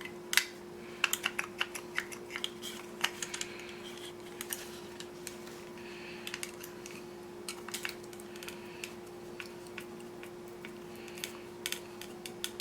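Small clicks and taps of plastic model-kit parts being handled and small screws being driven in with a hand screwdriver, coming in irregular clusters. A steady low hum runs underneath.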